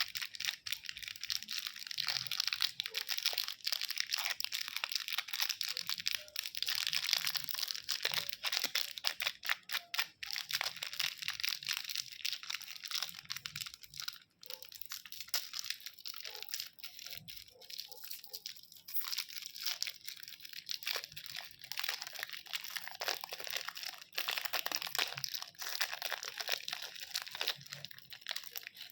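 Candy wrappers being crinkled and crackled: a dense, continuous run of fine crackles, with a short pause about halfway through.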